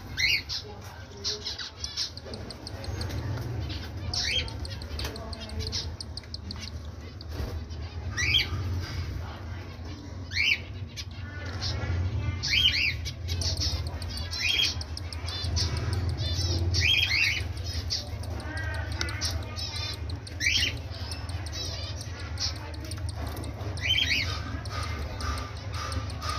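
Cockatiels making short, sharp chirps and squawks every second or two as an adult feeds its downy chick beak to beak, over a steady low rumble.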